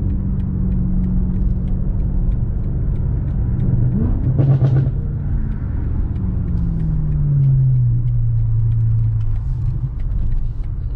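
BMW M5 Competition's twin-turbo V8 running under way, holding a steady note, then its revs falling off between about six and nine seconds in. A brief louder burst comes about four and a half seconds in.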